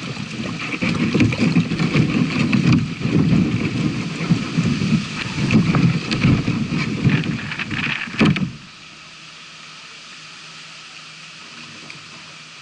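A sit-on-top kayak hull dragged across wet grass and storm debris, a scraping, rumbling rush that surges with each pull and stops abruptly about eight and a half seconds in, leaving a faint steady hiss.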